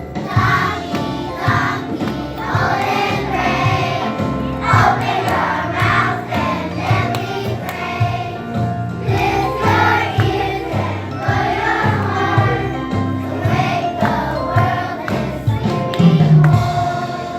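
Children singing together as a group over backing music.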